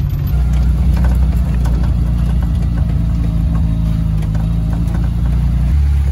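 Vehicle engine running with a steady low drone, heard from inside the cab while it drives along a rutted, muddy farm track, with scattered knocks and rattles over the bumps.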